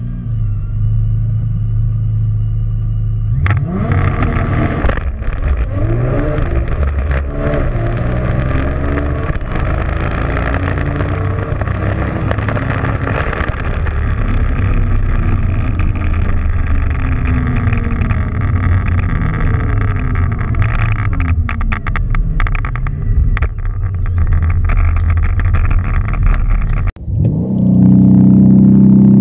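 Car engine held steady at a standstill, then launched hard at full throttle, its pitch climbing through each gear up to about 8,000 rpm and dropping at every upshift. Near the end it cuts to a Mercedes-AMG C63's twin-turbo V8 held at raised revs with launch control (Race Start) armed.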